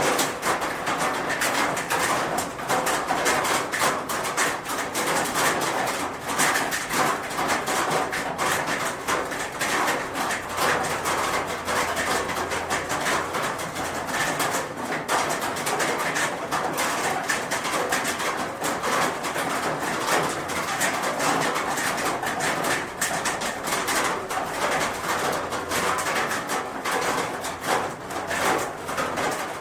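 Steady rain falling on a roof: a dense, even patter of countless drops striking the roofing, with no let-up.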